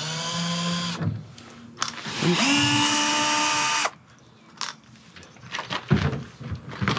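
A power drill running in two short bursts, each a steady whine. The first lasts about a second at the start and winds down; the second comes a little over two seconds in, spins up, runs about a second and a half and stops sharply. Light knocks near the end, as the back panel of a kitchen unit comes off.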